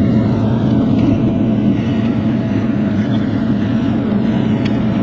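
Bobcat E42 R2 mini excavator's diesel engine running steadily while clearing brush.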